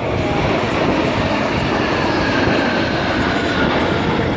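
Jet engines of a six-ship formation of Aero L-39 Albatros trainer jets flying past: a steady loud rumble with a faint whine that falls slowly in pitch.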